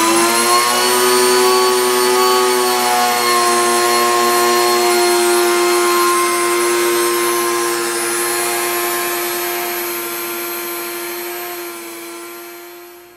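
Electric flour mill running, grinding dried acorn grits into flour: a loud, steady high-pitched motor whine. It has just spun up, and it fades and stops near the end.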